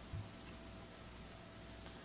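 Quiet room tone with a faint steady hum, and a brief soft low sound just after the start.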